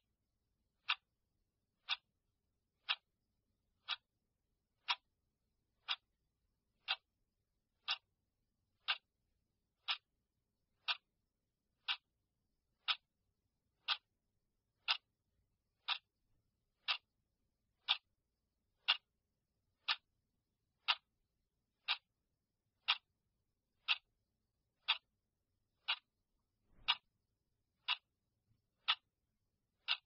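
Clock ticking steadily, one sharp tick each second.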